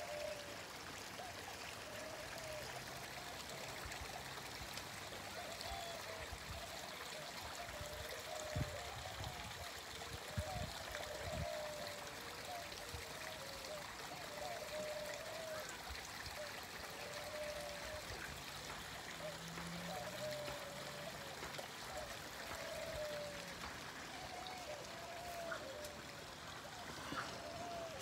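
Steady hiss like trickling running water, with a faint short note repeating about once a second.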